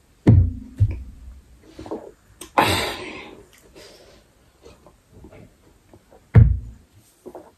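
A glass tumbler of water set down on a table with a heavy thud, twice about six seconds apart. Between the thuds comes one loud hissing breath out through the mouth, as after very spicy food.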